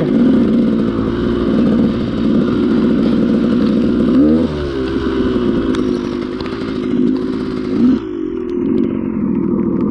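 Dirt bike engine running under way at low speed, rising and falling with the throttle, with a quick rev up and back about four seconds in and another just before eight seconds.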